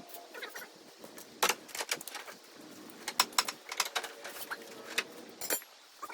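Hand tools clicking and clinking on metal: irregular sharp clicks, with a quick run of several about three seconds in.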